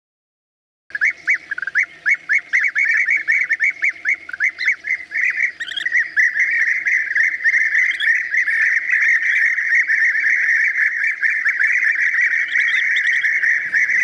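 European bee-eaters calling: a quick run of short chirping notes starting about a second in, thickening about halfway through into continuous chatter from several birds.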